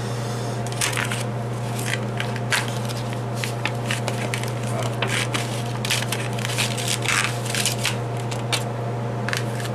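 Slotted spatula scraping and prying around the inside of a thin aluminium foil pie pan to free a baked pizza, the foil crinkling and crackling in quick, irregular scrapes, over a steady low hum.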